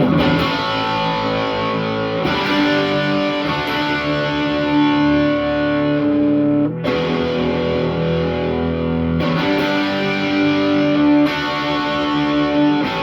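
Gibson SG electric guitar played through a Marshall SC20C JCM800-reissue tube combo with no pedals, from the high input with the preamp gain almost fully up: overdriven chords, each held to ring, changing a few times, with reverb added.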